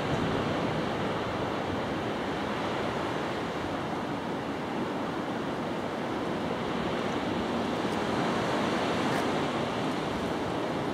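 Ocean surf washing steadily over the reef and shore, a continuous rushing sound.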